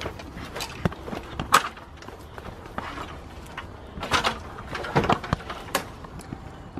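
Irregular knocks and clatters of a stepladder being carried and set up against a tree.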